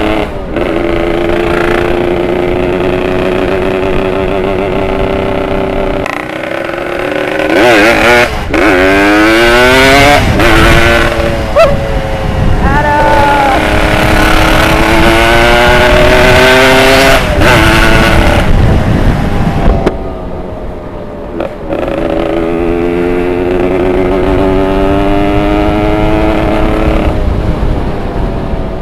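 Tuned Yamaha RX Special 115 two-stroke motorcycle engine under way: running steadily, then revving up several times with rising pitch about a third of the way in, steady again, easing off briefly past the middle, then steady once more.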